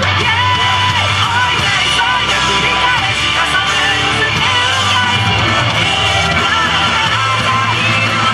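Yosakoi dance music: a loud rock-style song with singing and guitar, a sung melody of long held notes that slide between pitches over a steady bass line.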